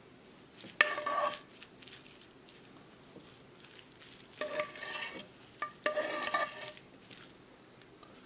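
Metal spoon scraping and clinking against the dishes as a thick white sauce is scooped into a glass bowl of shredded chicken, with soft stirring between. There are three short ringing scrapes: the first about a second in is the loudest, the other two come close together in the middle.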